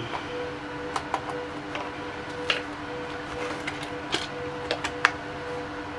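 Scattered light clicks and ticks, about seven at irregular intervals, as a small screw is backed out of a plastic device case with a Phillips screwdriver and handled. A steady low hum runs underneath.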